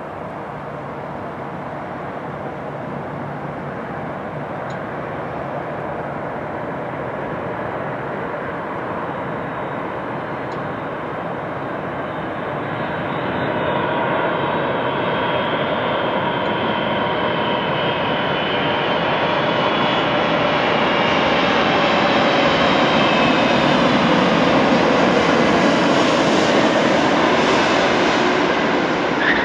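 Boeing 747-400 Dreamlifter on final approach, its four Pratt & Whitney PW4062 turbofans giving a whining roar that grows steadily louder as the freighter comes in low. Right at the end there is a short tyre squeal as the main gear touches down.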